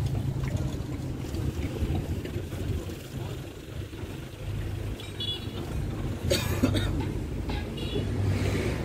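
A motor runs steadily with a low drone, and water spatters from a hose onto the ground. About six and a half seconds in comes a short clattering burst.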